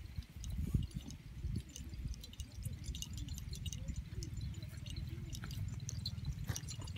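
A horse grazing: grass tearing and crunching between its teeth as it chews, a run of small irregular crackles over a low rumble.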